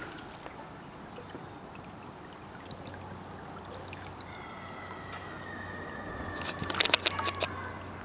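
Low, steady wash of lake water swirling and lapping against a wooden dock, with a brief cluster of sharp clicks and knocks about seven seconds in.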